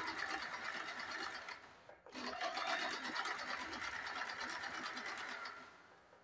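Compact household sewing machine running fast, stitching a straight seam along a blouse tuck with an even, rapid rattle. It stops briefly about two seconds in, runs again, and slows to a stop near the end.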